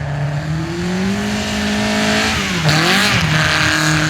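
Competition car engine at a hillclimb revving, its pitch climbing steadily, then dropping sharply about two and a half seconds in, with a short burst of hissing tyre noise.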